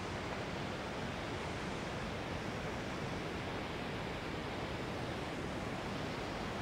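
Water pouring over a low concrete dam weir, a steady rushing noise with no breaks.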